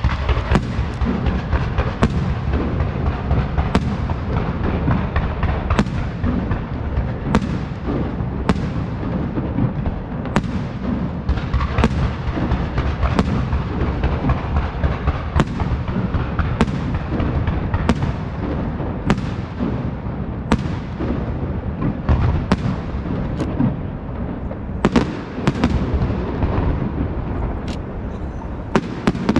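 Aerial fireworks display: firework shells exploding in quick succession, sharp reports about once a second over a continuous dense rumble and crackle of further explosions.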